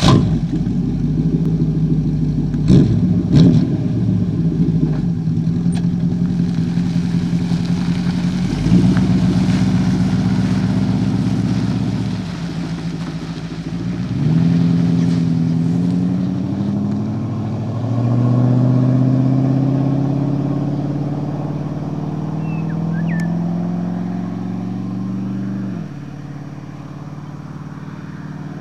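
4.6 litre Rover V8 in a Rover P6B running at low revs with a few sharp clicks, then revving up in two rising pulls as the car accelerates away, dropping off suddenly near the end as the throttle is closed and the sound recedes.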